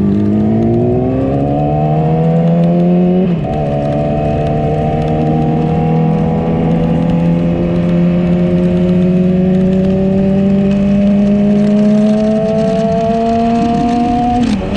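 Yamaha R6 sport bike engine under way, revs climbing, with a quick drop in pitch from a gear change about three seconds in, then a long, slow rise in revs and another shift near the end.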